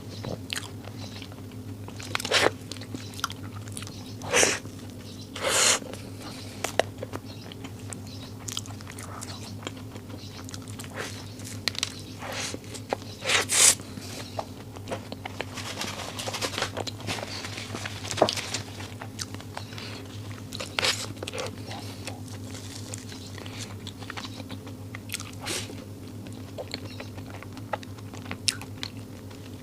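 Close-miked eating sounds: biting into and chewing extra-large glutinous rice balls (nuomici), with irregular sharp mouth clicks and smacks and a few louder bites, over a steady low hum.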